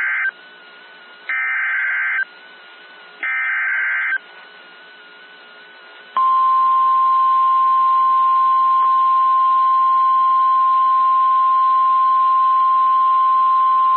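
NOAA Weather Radio emergency alert signal: the end of one burst and then two more short, harsh bursts of SAME header data about two seconds apart, followed about six seconds in by the steady 1050 Hz warning alarm tone, all over faint radio hiss. The sequence signals that a warning broadcast is about to follow.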